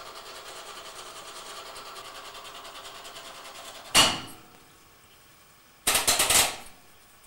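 Supertatramat automatic washing machine humming steadily, then a loud clack about four seconds in as its program dial is turned, after which the hum stops. Near the end comes a quick run of ratcheting clicks as the dial is turned further.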